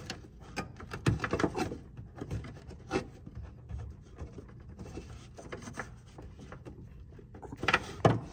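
Plastic low-beam headlight bulb cover on a Jeep Grand Cherokee being twisted counterclockwise off the back of the headlight housing by hand: plastic rubbing and scraping with scattered clicks, and a louder burst of clicks near the end.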